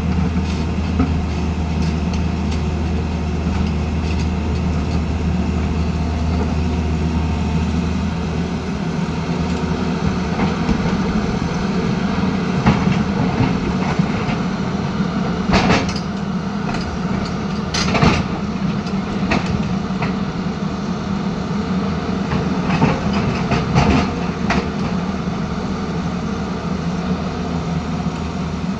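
Tata Hitachi Zaxis 220 excavator's diesel engine and hydraulics running steadily under work, the low drone changing about a third of the way in. Several sharp knocks of stone striking stone and the steel bucket come through as it shifts rocks.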